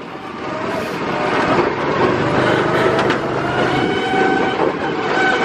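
Go-kart engines running at speed, heard from on board a kart, with the kart's tyres rumbling over a wooden plank track. The sound grows louder over the first couple of seconds, then holds steady.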